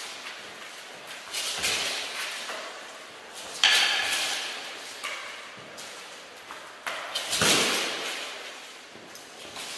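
Sharp knocks and clatters of hits landing on armour during armoured sparring, each echoing in a large hall. The loudest comes a little under four seconds in, with others about a second in and around seven seconds.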